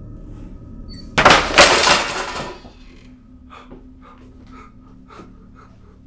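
A sudden loud crash about a second in, dying away over about a second, followed by scattered faint knocks and clicks over a low steady hum.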